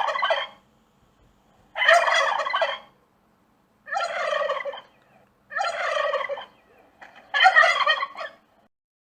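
Turkey gobbling: five rattling gobbles, each about a second long, with short pauses between them.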